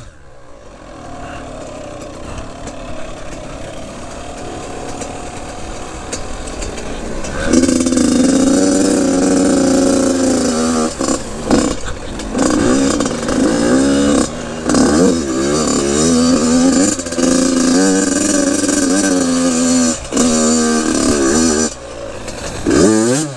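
Dirt bike engine, quiet and steady for the first few seconds, then much louder as it is ridden hard about seven seconds in: the pitch climbs and drops again and again through gear changes, with short gaps where the throttle is shut off.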